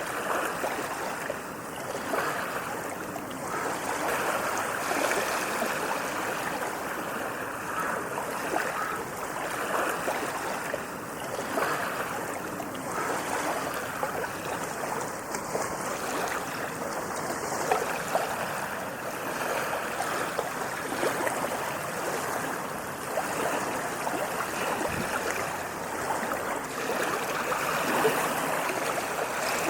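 Sea waves washing onto a sandy beach: a continuous rush of surf that rises and falls a little in loudness.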